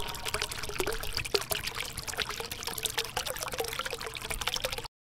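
A dense trickling, water-like crackle of many small clicks that cuts off abruptly near the end.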